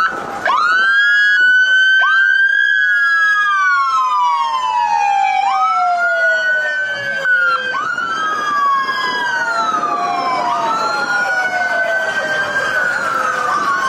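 Police SUV sirens in a wail, more than one at once and overlapping. Each climbs quickly, then slides slowly down in pitch, over and over. They break off briefly at the start, then start up again about half a second in.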